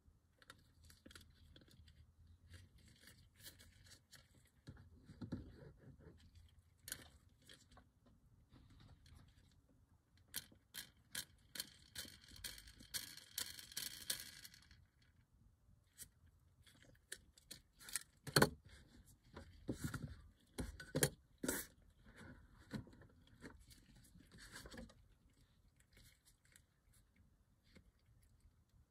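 Faint clicks, taps and scrapes of a diecast toy car's plastic chassis, metal axle and wheels handled in nitrile-gloved fingers. A few seconds of rubbing come about halfway through, and a group of sharper clicks follows.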